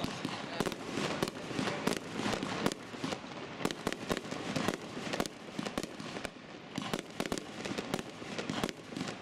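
Aerial fireworks firing and bursting: a quick, irregular run of sharp bangs, several a second, over a steady rushing noise.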